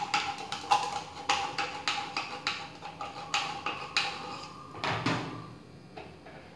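Metal spoon scraping and tapping inside a tin of sweetened condensed milk, short clicks about three a second, as the last of the thick milk is worked out into a bowl. Just before the end a single louder knock, as the tin is set down on the table.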